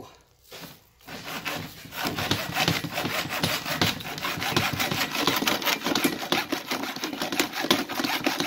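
Hacksaw cutting through a briefcase's combination-lock latch with rapid back-and-forth strokes, starting about a second in.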